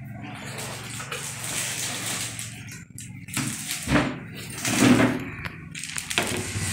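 Cardboard box flaps being pulled open and a telescope tube in a clear plastic bag being lifted out and set down, the plastic crinkling and rustling. The rustling is loudest twice, about four and five seconds in.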